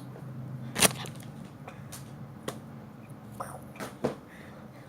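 A few sharp taps and knocks from objects being handled and set down, the loudest about a second in, over a faint steady low hum.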